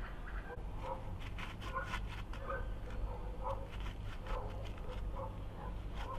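Short animal calls repeating every half second or so, with bursts of scraping strokes from a conical metal hand grater about a second in and again near the end.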